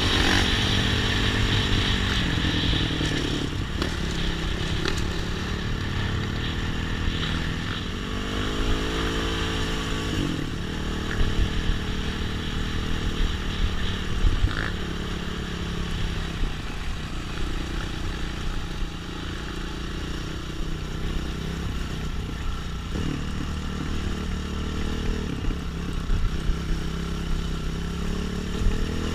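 Trail motorcycle engine running on the move, its revs repeatedly rising and falling, with occasional sharp knocks and clatter.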